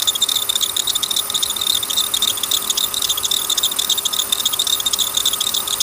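Engine accessory belt slipping and chattering at a faulty belt tensioner: a loud, fast, continuous rattle with a steady high squeal. The belt is walking off its track at the tensioner, and a new pulley has not cured it.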